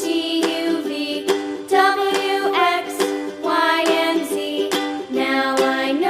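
Cheerful background music: a plucked string instrument, like a ukulele, with a bright melody over steady chords.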